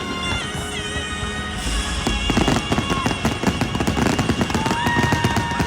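Fireworks bursting and crackling in quick succession, with show music holding long notes underneath.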